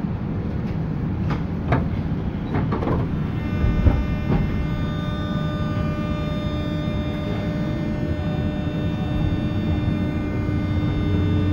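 JR 201 series electric train running: a steady rumble of wheels and motors with a few short squeals in the first three seconds. From about three and a half seconds in, the train's thyristor chopper control sets up a whine of many steady tones, with a lower tone joining past the middle.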